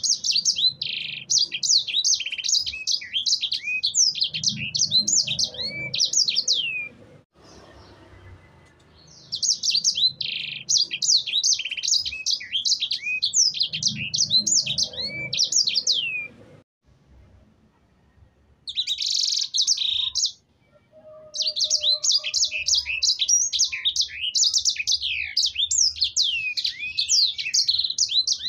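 Yellow-fronted canary (sanger) singing vigorously: long bouts of rapid, high chirped notes that sweep downward, in three bursts separated by short pauses. A brief buzzy note comes shortly before the last bout.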